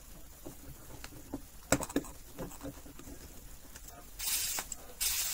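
A soldering iron and tools being handled at a workbench: a couple of light clicks, then two short hissing bursts near the end.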